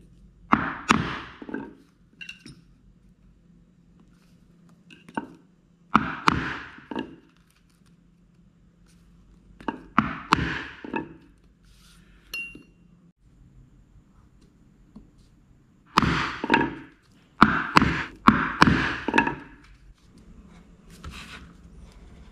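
A poly mallet striking a metal leather punch, driving it through leather into a poly cutting board. The hits come in bursts of several quick strikes, each with a short ring, with pauses of a few seconds between bursts.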